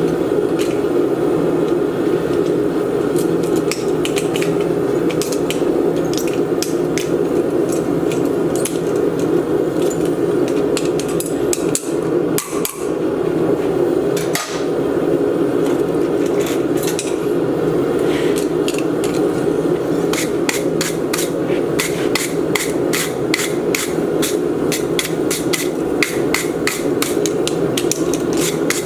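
Small cross-pein hammer tapping the ends of steel hinge pins to set them: scattered taps at first, then quick, even taps about three a second in the second half. A steady low rushing noise lies under the taps.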